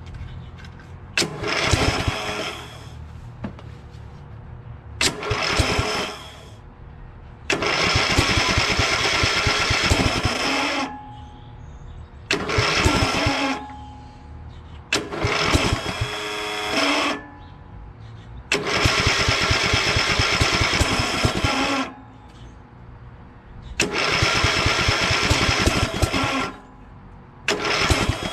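Craftsman LT2000 lawn tractor's Briggs & Stratton engine being cranked by its electric starter in about eight separate bursts of one to three and a half seconds, with short pauses between them. Each burst stops again without the engine staying running: the engine is not catching.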